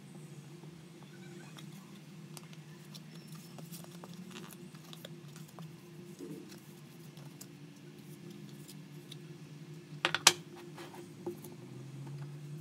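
Light handling noises and scattered small clicks over a steady low hum, with a quick cluster of sharp clicks about ten seconds in, the last one the loudest.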